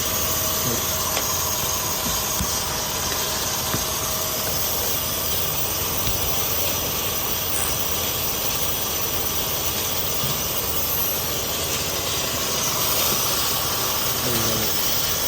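Car engine idling steadily in the engine bay, with an even hiss over it.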